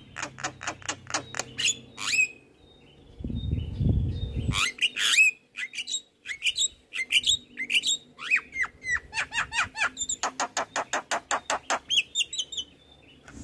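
Javan myna singing a varied, chattering song of quick clicking runs, sharp rising whistles and harsher squawky notes. About three seconds in, a low rumbling noise lasts about a second. Near the end comes a fast, even run of about eight clicks a second.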